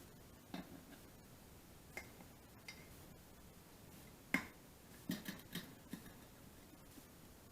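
Scattered sharp clicks and knocks of flat-head screwdrivers against an ATV wheel rim as the tire bead is pried over the rim edge. They come irregularly, the loudest a little past the middle, followed by a quick cluster of taps.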